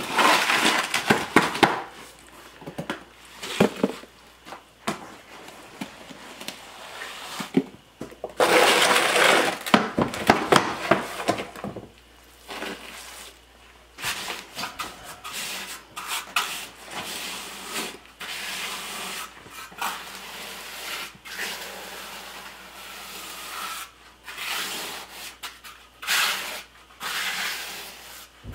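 Damp concrete mix scraped and scooped in a plastic mixing trough and dropped into a countertop form, then a steel trowel scraping and pressing the wet concrete in the form in many short, uneven strokes. The loudest scraping comes at the very start and again about eight to eleven seconds in.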